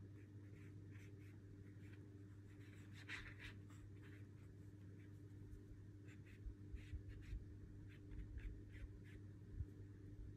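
Faint, soft strokes of a water brush's bristles across watercolour paper, in short scratchy dabs that come more often in the middle of the stretch, over a steady low hum.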